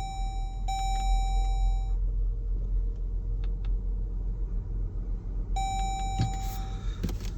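Vehicle warning chime sounding in long steady tones, twice in the first two seconds and once more near the end, over a steady low rumble.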